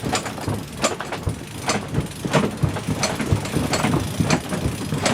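Sailboat deck hardware and rigging clicking and knocking at irregular intervals, roughly once or twice a second, over a low steady rumble.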